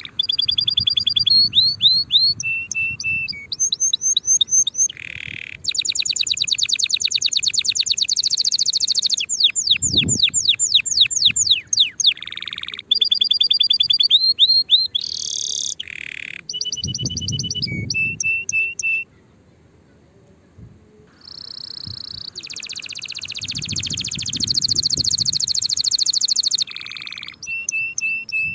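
Domestic canary singing a long song made of phrases of fast repeated notes and rolling trills, some sweeping quickly in pitch, others held on one buzzing note. The song breaks off for about two seconds roughly two-thirds of the way through, then resumes.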